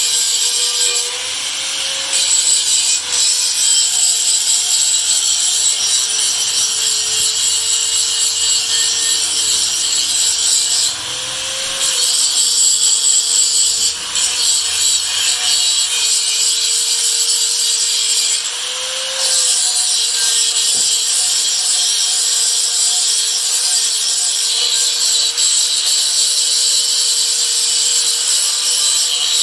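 Electric sanding tool abrading a sewing machine's metal body to strip the old finish before painting. It makes a steady scraping hiss over a motor hum, broken by three brief let-ups in which the motor's pitch rises slightly as it comes off the work.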